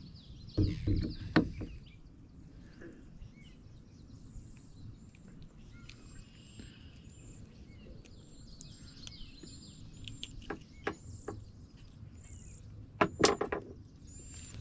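Outdoor ambience with a bird repeating short high notes over and over. A few knocks and clicks sound over it, a cluster about a second in and a louder cluster near the end.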